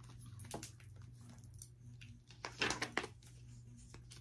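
Eyeshadow palette and its packaging being handled: faint clicks, taps and rustles, with a louder brief rustle about two and a half seconds in, over a low steady hum.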